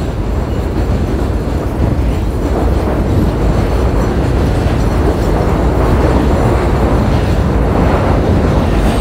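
A train passing close by: a loud, steady rumble of rail noise that grows a little louder over the first few seconds.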